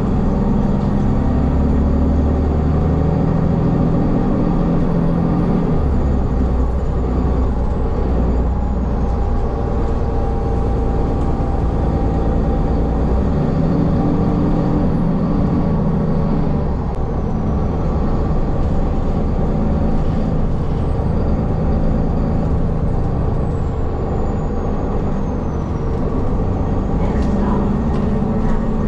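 City transit bus running, heard from inside the cabin during a ride: a steady engine and drivetrain rumble whose pitch rises and falls as the bus speeds up and slows. A faint high whine glides down in pitch several times.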